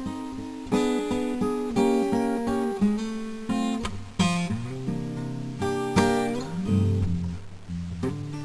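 Acoustic guitar music: chords struck roughly once a second, each left to ring.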